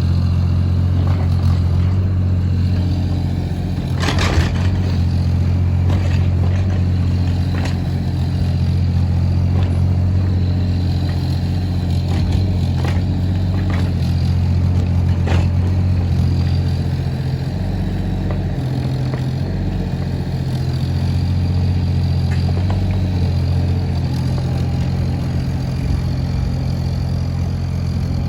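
Bobcat 325 compact excavator's diesel engine running steadily at a constant speed, with a few sharp metallic clanks at irregular intervals.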